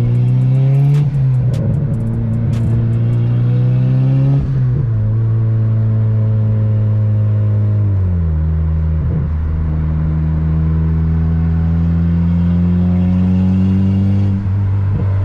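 Turbocharged Honda Civic Si's 2.4-litre K24 four-cylinder engine heard from inside the cabin, accelerating with its note rising steadily, dropping at an upshift about eight seconds in, then climbing again.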